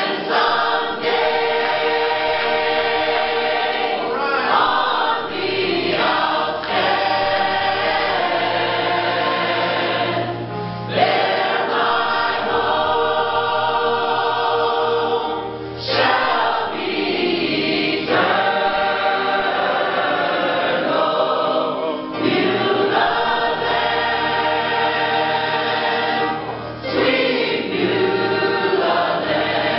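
Mixed gospel choir of men and women singing together, holding long chords.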